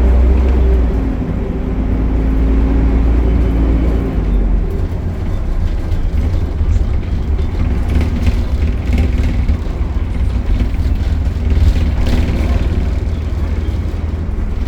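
Optare Solo single-deck bus with an Allison automatic gearbox running: a continuous low engine rumble, with a steady hum that fades out about four seconds in and comes back for a few seconds in the middle.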